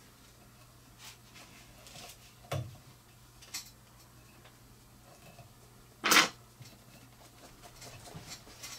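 A few light clicks and knocks of small fly-tying tools being handled and set down on the bench, the loudest a sharp knock about six seconds in, over a faint steady hum.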